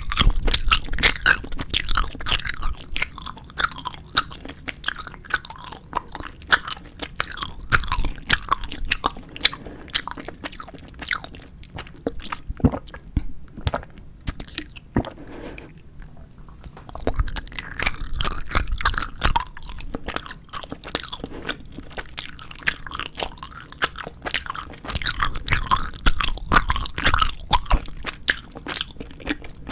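Close-miked chewing and biting of 4D jelly gummy candy: sticky, wet mouth sounds with crunchy bites. The chewing comes in busier spells with a quieter stretch around the middle.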